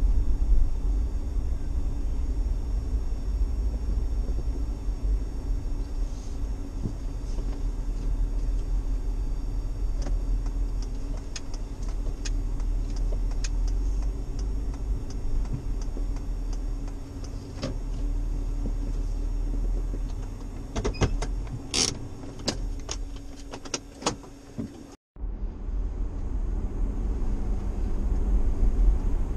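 Inside a moving vehicle's cabin: a steady low engine and road rumble, with a cluster of sharp clicks and knocks about three quarters of the way through. Then comes a sudden brief cut-out, and the rumble returns a little louder.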